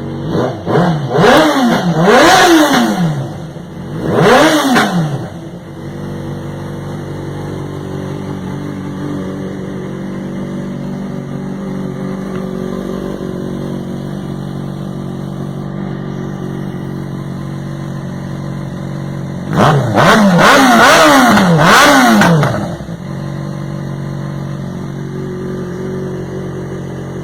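Yamaha XJ6 inline four-cylinder engine idling and being blipped hard on the throttle. There is a quick run of three or four revs in the first few seconds and one more about four seconds in. After that it settles to a steady idle, until another run of rapid revs about twenty seconds in, then it drops back to idle.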